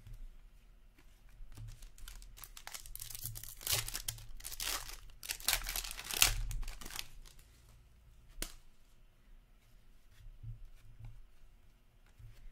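A foil trading-card pack wrapper being torn open and crinkled by hand, a run of tearing and crinkling that is loudest about six seconds in, then a single sharp click and quieter handling of the cards.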